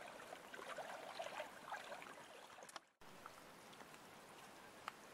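Shallow water sloshing and lapping with small irregular splashes as a person wades through it towing an inflatable dinghy. After about three seconds it cuts off to a faint steady hiss with a couple of small clicks.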